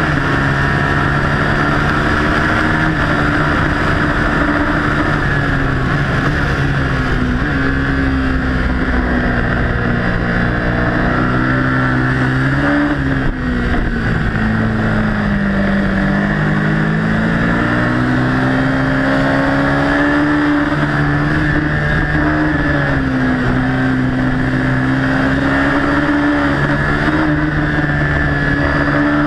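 Ducati Hypermotard's 821 cc Testastretta L-twin engine running hard at track speed, heard from a camera mounted on the bike. Its pitch rises and falls with the throttle. It drops around 13 seconds in, then climbs steadily as the bike accelerates again.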